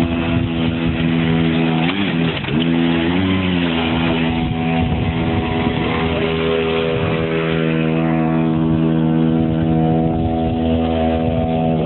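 Small engine of a motorized ride-on wheelbarrow running, its pitch dipping twice about two and three seconds in, then holding a steady drone.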